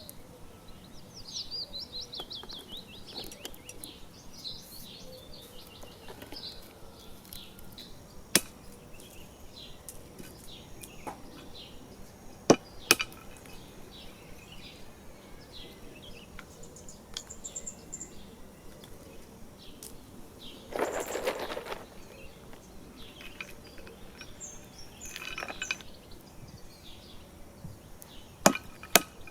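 Small birds singing and chirping in the background, broken by a few sharp, loud clicks or knocks, two of them in quick succession near the middle and two more at the end. About two-thirds of the way through there is a brief rustling or scraping burst.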